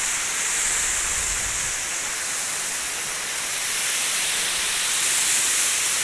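Waterfall pouring into its plunge pool: a steady, even hiss of falling water.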